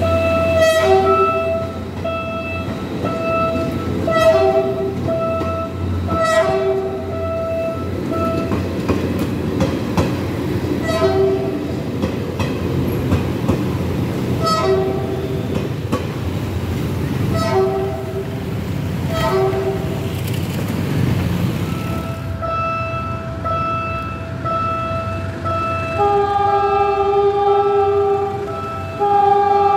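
Philippine National Railways commuter train passing close by, its wheels clacking over the rail joints with a steady rumble. In the last several seconds an approaching diesel locomotive's horn sounds in long, steady blasts, changing pitch partway through.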